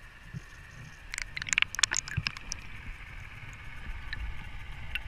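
Underwater sound picked up by a diver's camera beside a wreck: a low steady rumble of water, broken by a quick run of sharp clicks and knocks about a second in that lasts about a second and a half, then a few single ticks.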